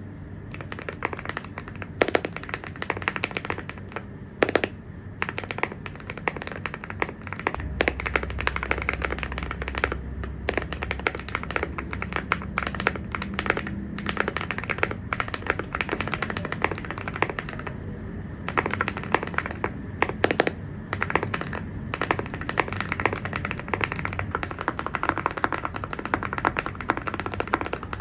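Typing on a mechanical keyboard fitted with ceramic keycaps: a fast, continuous run of key clacks with occasional louder keystrokes.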